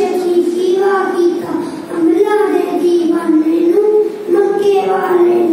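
A young boy singing into a handheld microphone, holding long notes that step up and down in pitch, with short breaks between phrases.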